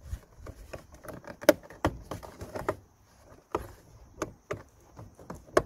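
Irregular plastic clicks and knocks as a hard plastic air-intake part is pushed and worked into place against the air filter housing in a car engine bay, the loudest knock near the end.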